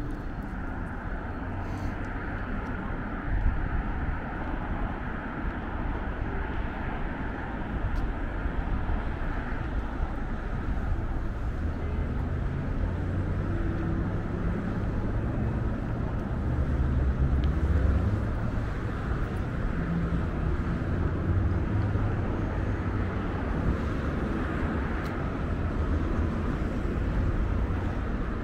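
City street ambience: a steady low rumble of road traffic, swelling a little in the middle as vehicles pass.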